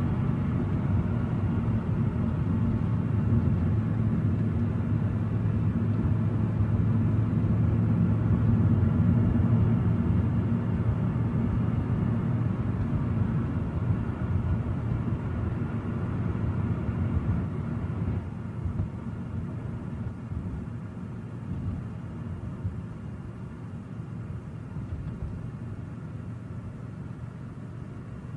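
A steady low rumble with a faint hum in it, easing off about two-thirds of the way through.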